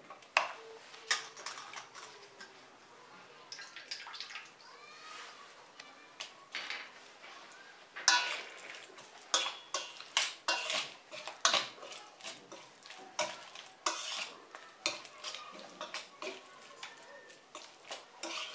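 A metal utensil stirring chicken pieces through thick marinade in a stainless steel bowl, with irregular clinks and scrapes against the bowl. They are sparse at first and come quickly from about eight seconds in.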